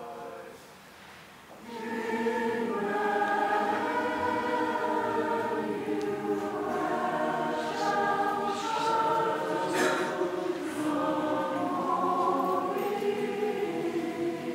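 Choir singing together, coming in about two seconds in after a brief quieter moment and carrying on with sustained sung notes.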